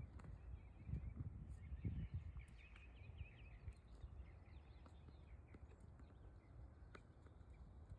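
Faint bird chirping in a quick wavering run about a second and a half in, over a low rumble.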